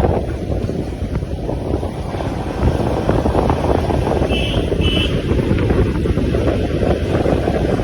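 Wind buffeting the microphone on a moving ride, a steady low rumble, with two short high beeps about halfway through.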